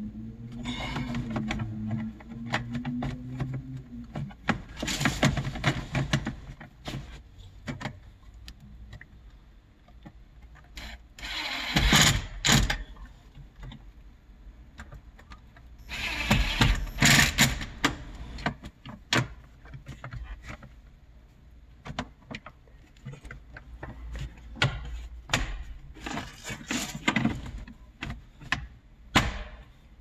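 Cordless power driver running in several short bursts of a second or two each, driving in the screws that hold a car door panel and handle trim, with clicks and knocks of plastic trim being handled in between.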